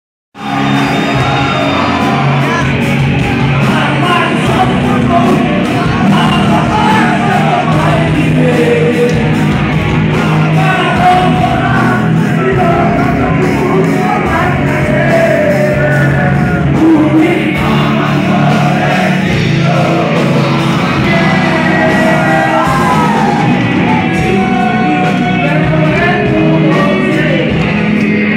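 Live rock band playing loud in a hall, a singer over electric guitar and a steady drum beat, with the crowd shouting along.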